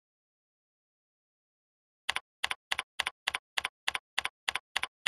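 Computer keyboard typing: even, steady keystrokes at about three to four a second, starting about two seconds in after dead silence.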